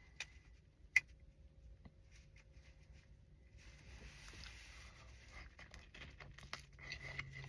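Faint eating sounds: a sharp click about a second in, then a soft rustle and scattered small clicks and smacks of handling and biting into a burrito dipped in queso.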